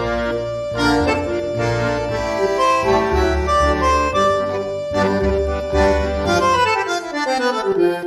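Background music: a melody of held notes over a steady bass beat, with a run of notes sliding downward near the end.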